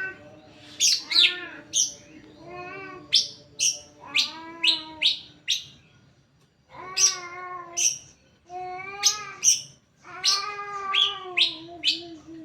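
Greater green leafbird (cucak hijau) singing: repeated wavering, mewing phrases broken by sharp, high chirps, in short bursts with brief pauses.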